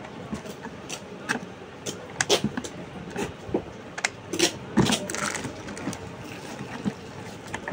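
Irregular clicks and knocks from a hand-held roller batch-printing machine, its metal frame and rubber roller being handled and turned over, with a brief rustle of packaging.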